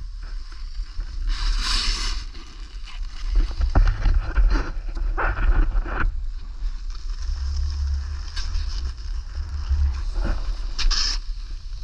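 Wind rumbling on the microphone during a downhill run in snow, with a few short hissing bursts of snow spraying off the edges in turns, about 2 s, 5 to 6 s and 11 s in.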